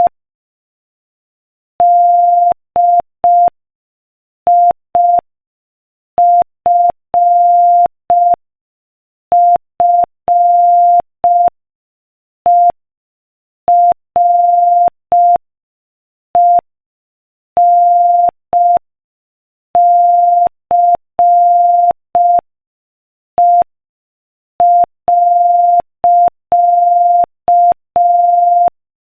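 Morse code sent at 5 words per minute: a single steady mid-pitched tone keyed on and off in short dits and longer dahs, with longer silences between letters and words. Each beep starts and stops with a faint click.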